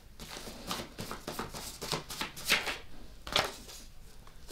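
Tarot cards being handled: a scatter of soft taps and rustles as cards are drawn and laid down.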